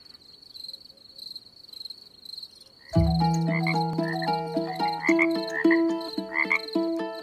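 A night soundscape: insects keep up a pulsing high chirp, about four pulses a second. About three seconds in, a loud chorus of croaking frogs starts in repeated pitched calls over a low hum, and the insect chirping carries on beneath it.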